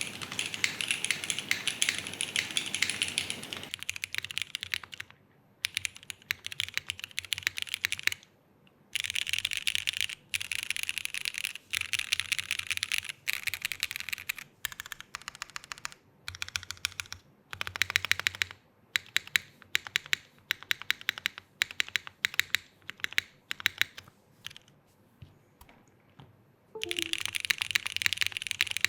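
Typing on a custom gasket-mounted mechanical keyboard with a polycarbonate plate, modded Cherry New Nixie switches and GMK Tako keycaps. It goes in bursts of fast, dense keystrokes, with stretches of slower single key presses and brief pauses between them.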